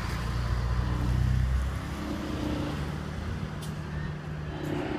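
A large vehicle's engine running with a low, steady drone, loudest for the first second and a half, then a quieter hum continues.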